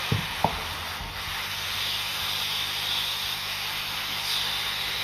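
Hot air rework station blowing a steady hiss of air, heating a laptop motherboard's battery connector to desolder it, over a low steady hum. Two short knocks come in the first half second.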